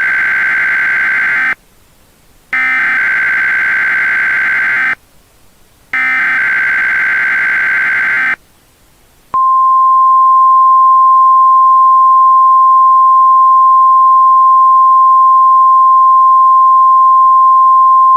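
Emergency Alert System SAME header: three buzzing digital data bursts, each about two and a half seconds with a one-second gap between them. About nine seconds in, they are followed by the NOAA Weather Radio 1050 Hz warning alarm tone, a single steady high beep held for about ten seconds.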